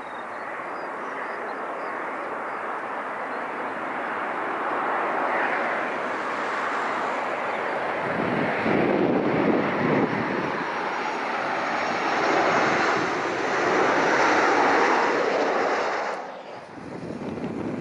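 Boeing 737-800's CFM56 jet engines on final approach, a rushing jet roar that grows steadily louder as the airliner passes low and close overhead. Near the end the sound drops abruptly and comes back quieter and more distant.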